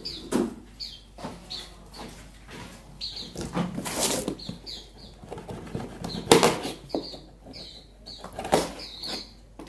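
Wild-caught cucak jenggot (grey-cheeked bulbuls) flapping and scuffling in their shipping box as they are handled, in repeated short bursts. Short high chirps recur throughout.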